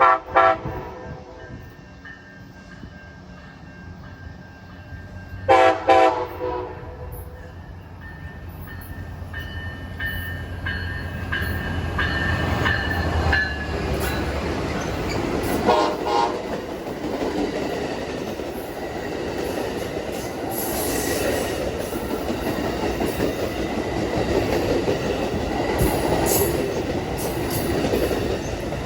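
Amtrak ALC-42 Charger diesel locomotive sounding short horn toots in three groups: near the start, about six seconds in, and about sixteen seconds in. Its engine rumbles as it draws close. Rail and wheel noise builds after that, with clickety-clack from the passing cars.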